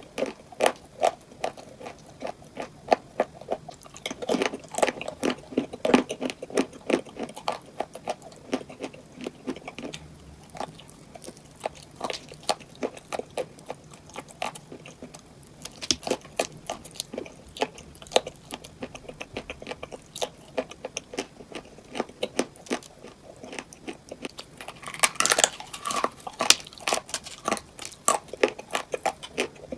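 Close-up chewing and biting of crunchy cupcakes filled with crunchy items: a steady run of rapid crisp crunches, with a louder burst of crunching near the end.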